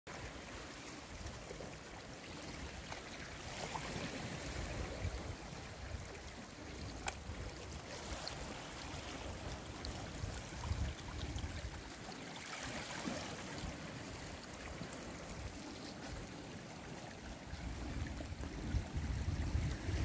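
Shallow seawater lapping and trickling at the shore among melting ice floes, swelling gently every few seconds as small waves wash in. One sharp click about seven seconds in.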